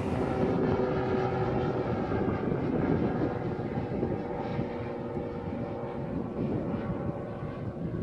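Light aircraft flying overhead, its engine a steady drone that slowly fades.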